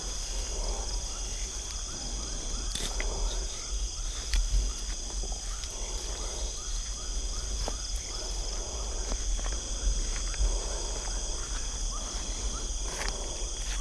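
Steady chorus of crickets and other night insects, with a few brief clicks and knocks from handling the rod in the grass.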